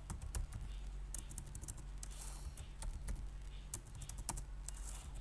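Computer keyboard being typed on: irregular key clicks, several in quick runs, over a steady low hum.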